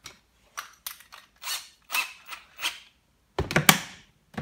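Drill chuck being twisted tight by hand on a spade bit: a run of short rasping clicks. Near the end come a few heavier knocks as the plastic crate and its latch are handled.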